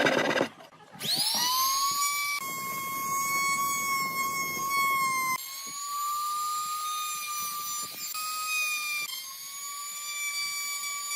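Small high-speed power tool motor spinning up to a steady, high-pitched whine and running on. The whine shifts abruptly a few times.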